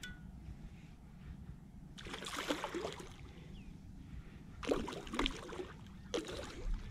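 Water splashing in three short bursts over a low steady rumble.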